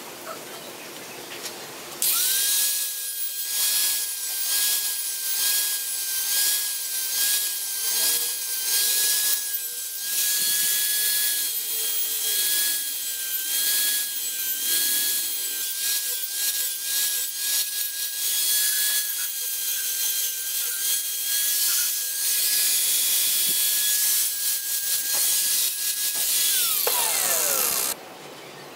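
Angle grinder running with a steady high whine, its disc grinding against saw-blade steel in a vise, the grinding noise swelling and easing as it is pressed on. It starts about two seconds in, and near the end it is switched off and its whine falls in pitch as the disc spins down.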